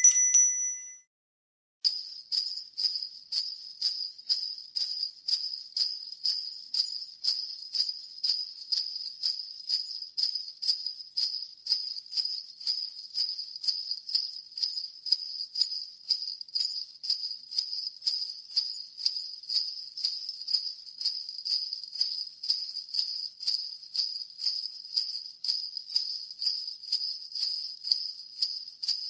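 A bright chime rings and dies away within the first second. After a short gap, sleigh bells start jingling in a steady, even rhythm of about two to three shakes a second.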